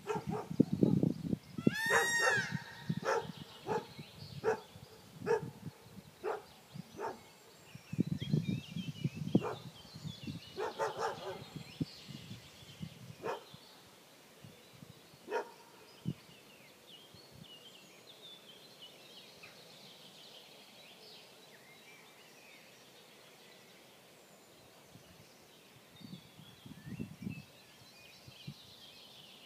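A series of short animal calls, about one a second through the first half, mixed with low crunching noises that are the loudest sounds; faint scattered bird chirps in the second half.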